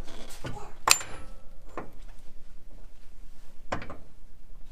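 A few sharp metallic clinks and knocks of a heavy socket and wrench being handled against the truck's steering parts, the loudest about a second in with a brief metallic ring.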